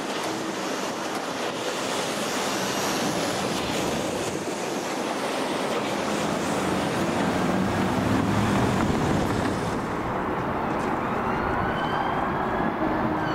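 A train running past with a heavy rumble and rush of wheel noise that builds to its loudest about eight seconds in. Near the end a rising whine comes in, as of traction motors picking up speed.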